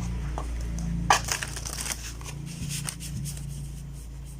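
Oversized tarot cards being handled as half the deck is reversed and pushed back in. A sharp tap about a second in is followed by a second or so of cards sliding and rustling against each other, then a few light ticks.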